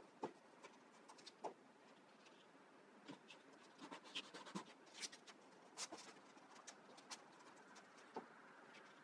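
Faint, scattered taps and short rustles of cut paper shapes being handled and pressed down by hand onto a glued paper collage.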